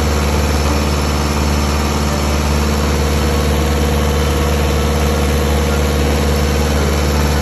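Carrier reefer unit's diesel engine running steadily just after an oil change.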